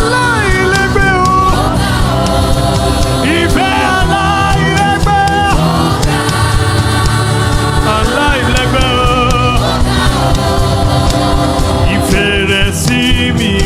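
Gospel worship music: voices singing long, wavering melodic lines over a steady instrumental backing.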